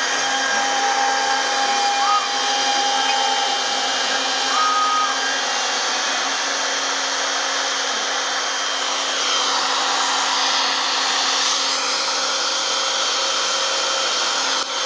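Homebuilt CNC router's spindle running at about 16,500 rpm while a 4 mm three-flute cutter pockets MDF: a steady whine with a cutting hiss. A few brief rising-and-falling tones come in during the first few seconds.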